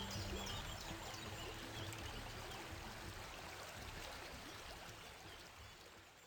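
Steady rushing outdoor ambient noise with a few short high chirps in the first second or two, fading out gradually toward the end.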